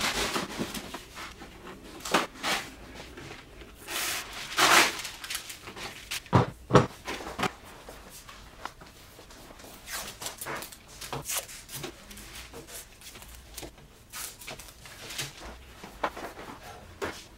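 Irregular knocks, clatter and rustling of a person moving about a room and handling things, with a pair of louder thumps close together about six and a half seconds in.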